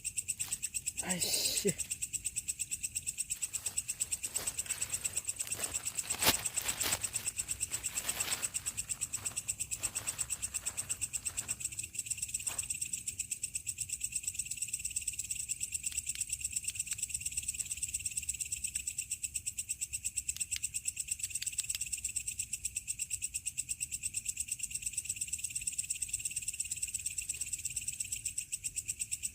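Night insects, crickets among them, chirring steadily in a fast pulsing rhythm at two high pitches. A short sharp knock comes about six seconds in.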